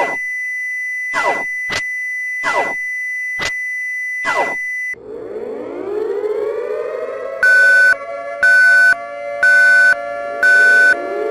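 Emergency alert signal: a steady high tone broken by five quick sweeping chirps, cutting about five seconds in to a siren winding up in pitch. From about the middle a loud pulsing beep sounds about once a second over the siren, which winds up again near the end.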